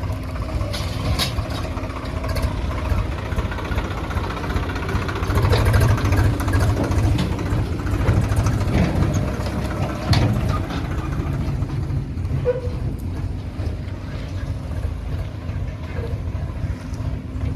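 Heavy diesel earthmoving machinery running under load with a steady low rumble and hum, swelling louder about five seconds in, with a few sharp metallic clanks.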